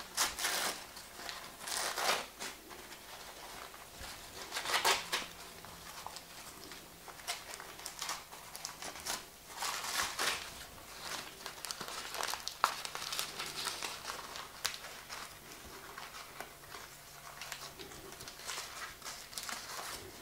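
Newspaper and plastic wrapping crinkling and rustling in irregular bursts as it is pulled off a potted orchid by hand.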